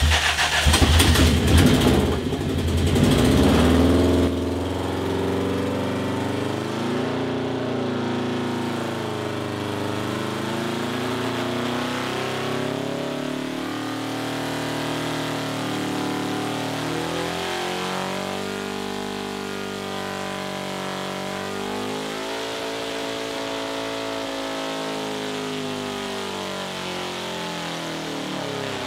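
Porsche four-cam flat-four engine running under load on an engine dyno during a full power run. It is loudest in the first four seconds, then holds at high revs with its pitch wandering up and down.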